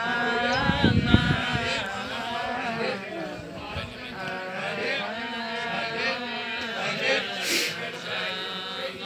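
A man's voice chanting in long, drawn-out, wavering notes, with a couple of low thumps about a second in.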